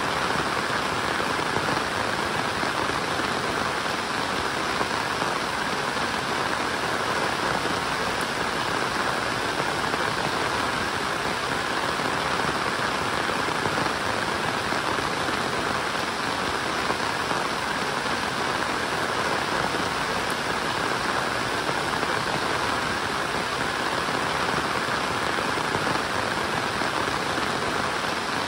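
Steady rain falling: an even, unbroken hiss with no separate sounds standing out.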